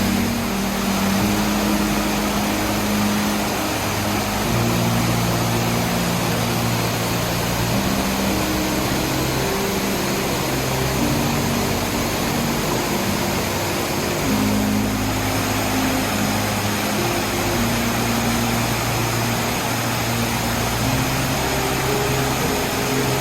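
Steady rushing of a spring-fed waterfall, with slow background music of held low notes that change every second or two laid over it.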